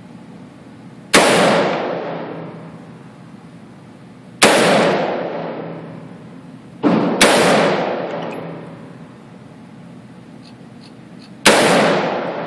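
AR-15 rifle firing single shots, five in all, a few seconds apart, with two in quick succession about seven seconds in. Each shot is a sharp crack followed by a long echoing decay off the walls of an indoor range.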